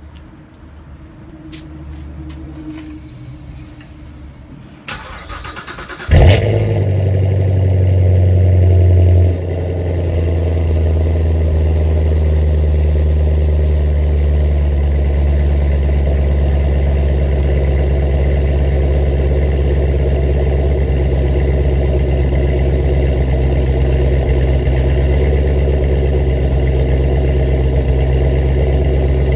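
A 6th-gen Chevrolet Camaro with a Flowmaster 10-series exhaust is started: the starter cranks about five seconds in and the engine catches with a loud flare. It holds a fast idle for about three seconds, then settles into a steady idle. At start-up the stock exhaust valves rattle, a common GM fault that the owner puts down to a loose valve pin.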